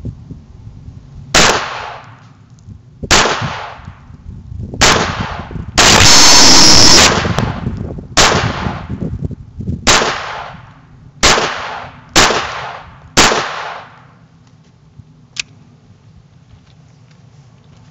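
Walther P22 .22 LR pistol firing repeatedly, one shot every one to two seconds, each crack trailing off in a long echo. Around six seconds in there is a louder unbroken stretch of about a second. The shooting stops about two-thirds of the way through.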